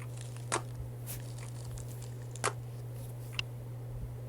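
Slime being handled: four short, sharp clicks spread about a second apart over a steady low hum.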